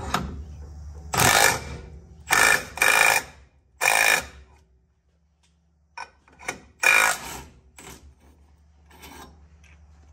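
A cordless power driver runs in about half a dozen short bursts, with a pause about halfway through, as it turns the bolt of an exhaust pipe expander to stretch the end of a muffler's pipe.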